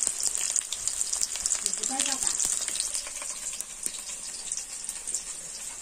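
Sliced onions frying in hot oil in a wide metal pan: a steady sizzle with fine crackling throughout.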